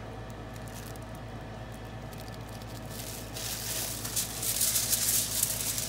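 Low steady hum, then about three seconds in a crackly rustling starts and keeps on: a plastic-gloved hand handling a sauced turkey leg on crinkly aluminium foil.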